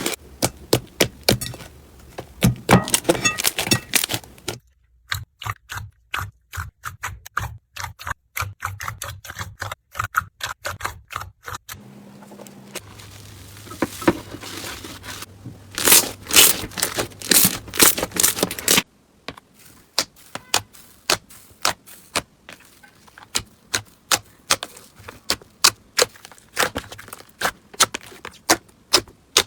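Crunchy slime being squeezed and pressed, giving dense runs of quick crackling clicks and pops. The texture changes abruptly a few times as one clip cuts to the next.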